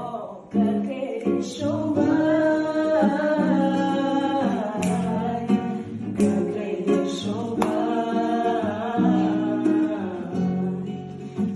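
Singing accompanied by an acoustic guitar, plucked notes under a sung melody.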